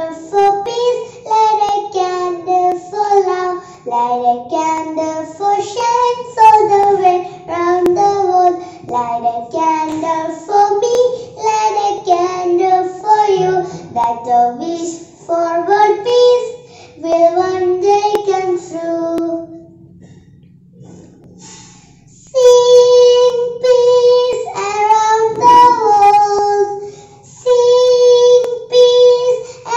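A young girl singing an English rhyme alone, in short melodic phrases. After a brief pause about twenty seconds in, she holds long, steady notes.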